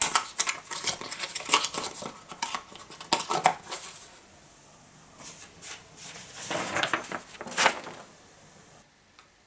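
Cardboard perfume box being handled: a quick run of clicks, taps and rustles as its lid flap is tucked shut and the box is laid down, then a second, softer bout of rustling ending in a knock.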